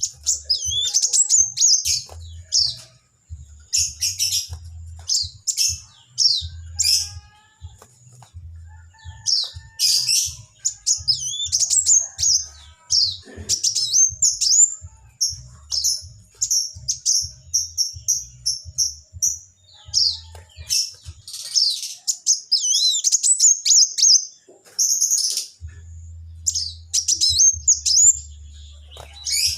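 A small songbird known in Indonesia as burung kaca (kowul) singing: rapid, high-pitched twittering and chirped phrases in repeated bursts, with short pauses between them.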